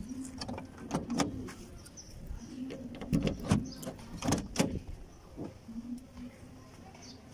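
Irregular clicks and knocks of handling inside a small car's cabin, around the door trim and window, over a faint low hum that comes and goes.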